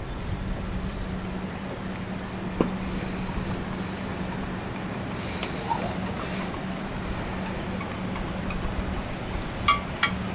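Steady running noise with a low hum as a tramway maintenance carriage travels along the track rope, a single sharp click a couple of seconds in, and a few short ringing metallic clinks near the end.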